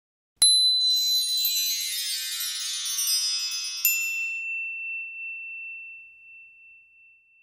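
Logo sting: a bright shimmer of high chime tones that starts suddenly about half a second in, with a second sparkle about four seconds in, then one high ringing tone that fades out.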